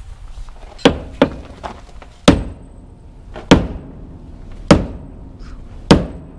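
Sledgehammer striking a stuck tractor-style wheel to knock it loose, one lighter blow early and then five heavy blows about a second apart, each with a short metallic ring.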